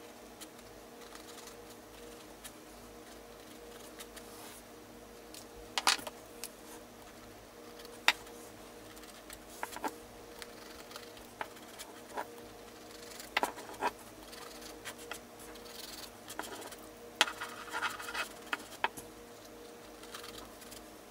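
A marker tip scratching and tapping on a textured decoupaged canvas, in scattered short strokes and clicks with a small cluster near the end. A steady low hum runs underneath.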